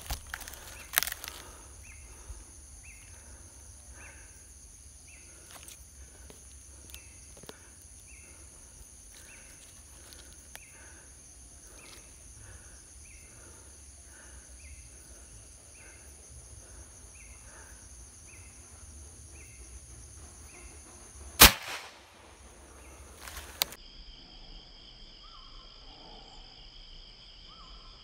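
A single sharp rifle shot about three-quarters of the way through, the hunter's Predator OD38 fitted with a suppressor, firing at a wild boar. Under it, steady high-pitched evening insect trilling and a chirp repeating roughly every three-quarters of a second.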